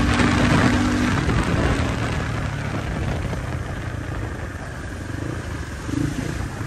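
A motorcycle being ridden on the road, its engine mixed with wind rushing past the microphone; the noise grows quieter toward the middle as the bike eases off. A steady tone at the start stops about a second in.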